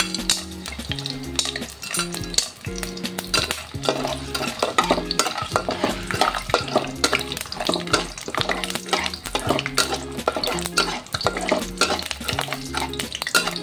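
A metal ladle and spatula stir and scrape around a wok of hot oil, with many quick clicks and knocks against the pan, while cinnamon sticks, lemongrass and rock sugar fry and sizzle.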